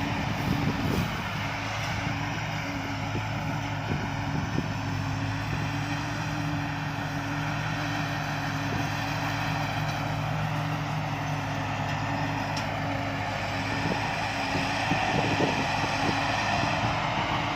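Somboon Pattana-built rice combine harvester's engine running steadily, with a broad whirring mechanical noise over a low engine hum, swelling a little near the end.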